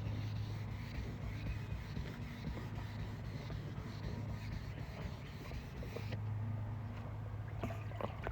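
Steady low mechanical hum with faint scattered clicks, cutting off suddenly at the end.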